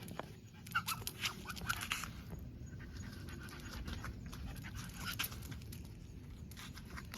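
Shiba Inu dog panting and snuffling, with many short clicks and a few brief high squeaks about a second in.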